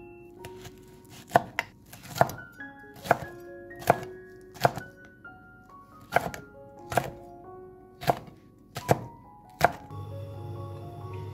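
A chef's knife chopping chili peppers into rings on a thick wooden cutting board: about a dozen sharp knocks, roughly one a second at an uneven pace, stopping near the end. Background music plays throughout.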